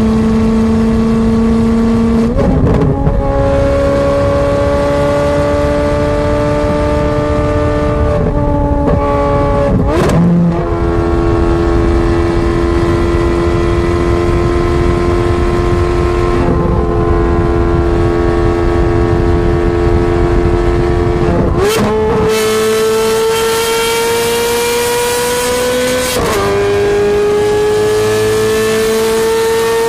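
Ferrari 430 Scuderia's V8 running loud through a straight-pipe exhaust under way. Its pitch climbs slowly and then steps sharply at several gear changes, some marked by a short crack.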